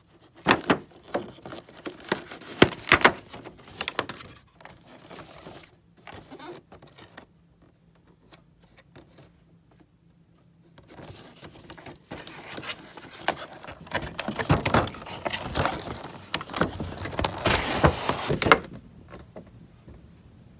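A cardboard toy box being handled and opened by hand. It starts with scattered taps and scrapes of cardboard, goes quiet for several seconds in the middle, then gives a longer spell of dense rustling and scraping as the flaps and insert are worked open.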